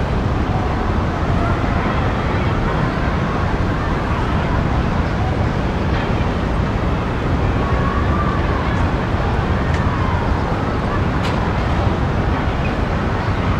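Steady midtown Manhattan traffic rumble heard from high above the street, with faint, distant children's voices from a schoolyard drifting in and out.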